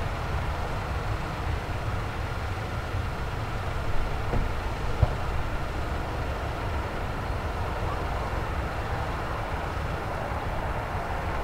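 Boeing 737-800's twin CFM56-7B turbofan engines running steadily at low taxi thrust as the airliner rolls and turns, heard from a distance as a continuous low rumble.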